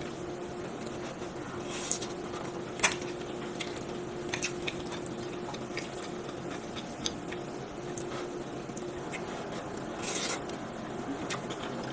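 Eating sounds: a metal fork scraping and clicking against a ceramic baking dish while scooping baked macaroni and cheese, with soft squishy mouth sounds of chewing. A short breathy rush comes near the end as a forkful goes into the mouth, over a faint steady hum.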